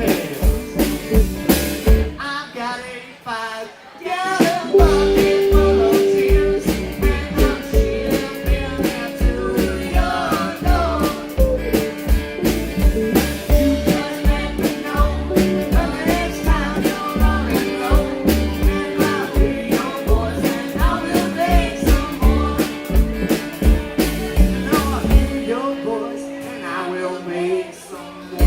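Live rock band playing a bluesy rock-and-roll number with electric guitar, bass and steady drums. The drums drop out for about two seconds near the start and then come back in.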